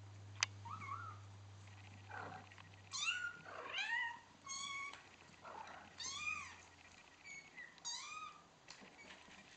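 Four-week-old kittens mewing: about a dozen short, high-pitched mews, each rising and falling in pitch, some overlapping. A single sharp click sounds about half a second in.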